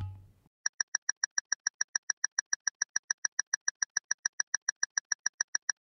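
Countdown-timer ticking sound effect: rapid, even clock-like ticks, about seven a second, starting about half a second in and stopping shortly before the end. A brief low transition sound comes at the very start.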